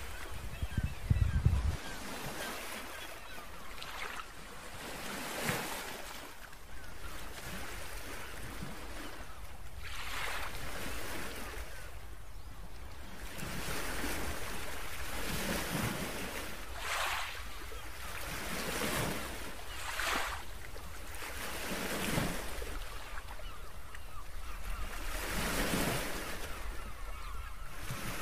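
Small waves breaking and washing over a pebble beach, a fizzing surge of surf every couple of seconds. Wind rumbles on the microphone throughout, with a louder gust about a second in.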